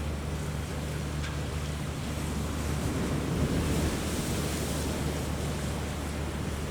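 Strong wind buffeting the microphone over rough, choppy sea water, with a steady low hum underneath. The wind and surf swell about three seconds in, then ease off.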